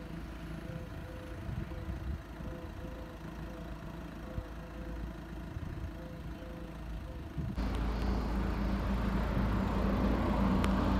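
Car engine running with road noise, a steady low hum. About seven and a half seconds in, it suddenly jumps to a louder rushing noise.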